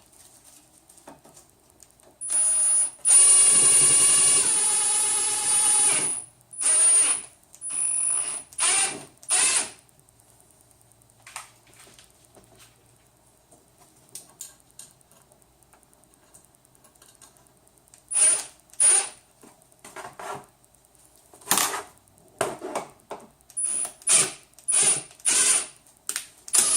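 Cordless power drill-driver driving a screw: one run of about four seconds whose pitch sags near the end as it loads up, then a string of short trigger bursts, a cluster of four and later a quicker run of about nine.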